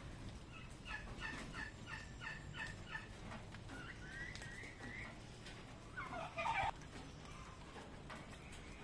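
Domestic turkeys calling: a run of short repeated notes, then a rising call, and a louder, harsher call about six seconds in.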